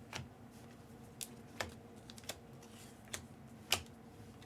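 Scattered light clicks and ticks, about six in all, of chrome trading cards being handled and flicked through by hand, over a faint steady hum.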